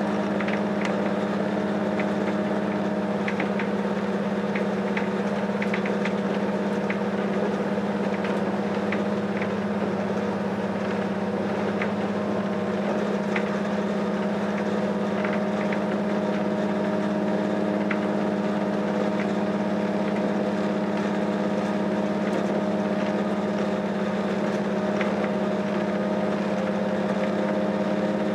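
SNCF B 81500 railcar running steadily, heard on board: a constant low engine hum with a steady higher tone over it, and scattered light clicks.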